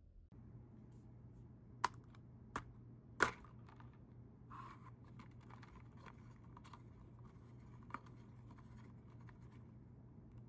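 Plastic straw worked in the lid of a plastic cup of iced coffee, stirring the ice: three sharp clicks in the first few seconds, then several seconds of light scraping and rattling with one more click.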